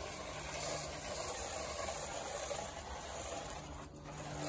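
Steady hiss of a chemical sprayer spraying rust remover, easing off slightly near the end.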